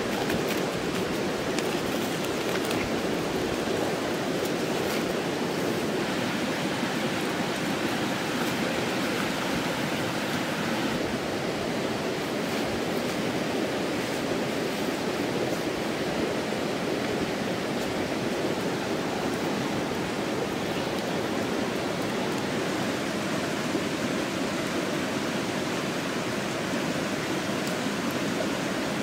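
Steady rushing outdoor noise at an even level throughout, with a few faint clicks here and there.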